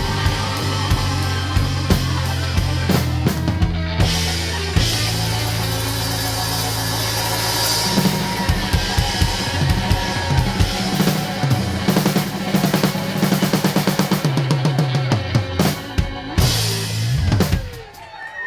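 Blues band playing instrumentally: drum kit with bass drum, snare and cymbals over held bass notes, with a fast run of drum hits late on before the music breaks off near the end.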